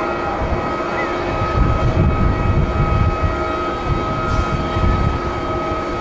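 Boeing 737 jet engines with a steady multi-tone whine as the airliner moves past. Irregular low rumbling of wind buffeting the microphone gusts through most of it.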